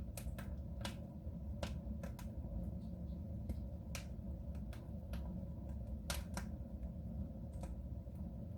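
Fire burning in a soapstone stove: irregular sharp crackles and pops over a steady low rumble.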